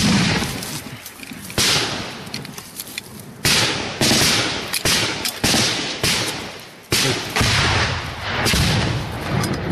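Gunfire: about ten separate, irregularly spaced shots, each loud crack trailing off over a second or so as it echoes through the jungle.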